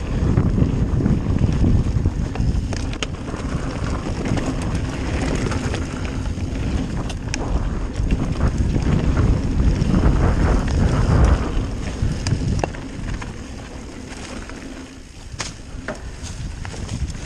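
Wind buffeting the microphone of a camera on a mountain bike riding fast downhill, over the rumble of tyres on a rough trail, with occasional sharp clicks and rattles from the bike. It eases off for a few seconds near the end.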